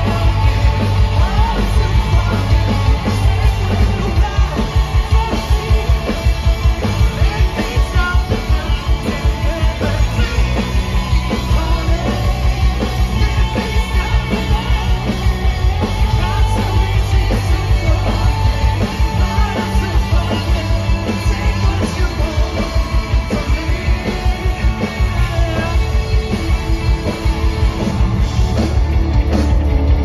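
Rock band playing live at full volume, heard from the crowd: drums keeping a steady beat under electric guitars and bass, with sung vocals.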